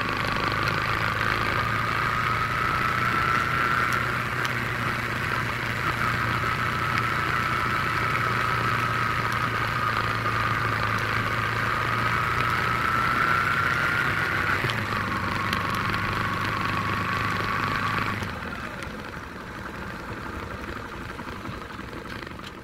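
A small Yamaha motorcycle's engine, heard from the rider's seat while riding slowly at low revs, with a high whine drifting up and down in pitch over it. About three-quarters of the way through, the engine note drops away as the bike slows down.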